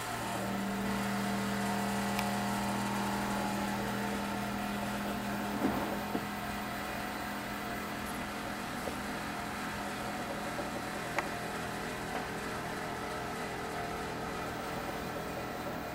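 A steady machine hum, like a fan or small motor, that comes on at the start and carries on evenly, with a few faint clicks over it.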